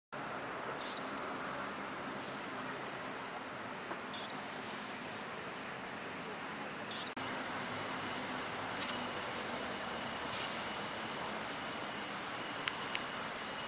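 Steady high-pitched chorus of night insects chirring over a low hiss of outdoor ambient noise. About seven seconds in, the chorus gets slightly louder and shifts in pitch.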